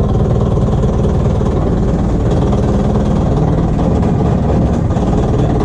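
An engine running steadily with a low drone, heard from on board.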